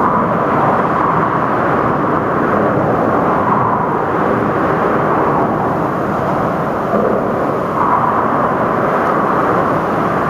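Heavy rain: a steady, loud rushing noise with no breaks.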